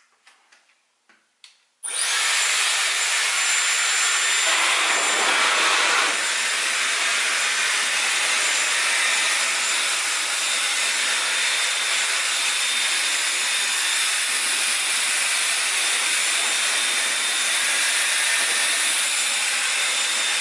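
Dyson Airwrap hair styler switched on about two seconds in, then blowing steadily on its highest heat setting: a powerful, even rush of air with a faint high motor whine. A few light clicks come just before it starts.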